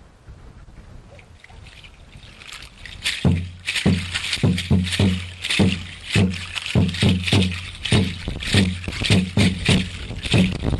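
Quiet for about the first three seconds. Then a deep drum starts a steady dance beat of about two strokes a second, with the dry shake of rattles on the strokes: Mexica ceremonial dance music.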